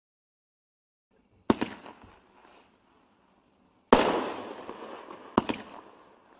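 A 16-shot 500-gram consumer fireworks cake (Deco 'Title Fight') firing its shots: three sharp bangs about a second and a half, two and a half and one and a half seconds apart, each followed by a fading crackle of the bursting stars.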